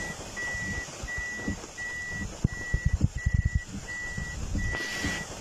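A vehicle's electronic warning beeper sounding a single high tone over and over, about one and a half beeps a second, over a steady hiss of heavy rain on the vehicle. A quick run of low knocks comes about halfway through.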